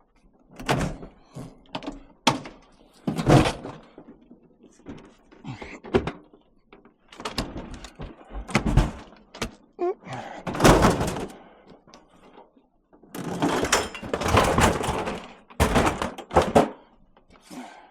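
Scrap being handled and dropped onto a pile: an irregular string of heavy thuds and knocks, with a longer burst of clattering about two-thirds of the way through.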